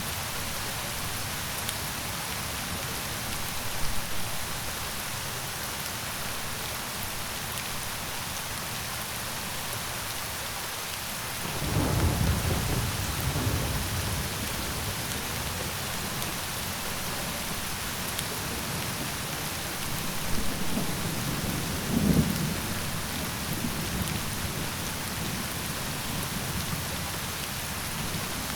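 Steady heavy rain falling, with low rolling thunder that swells up twice, about twelve seconds in and again around twenty seconds in.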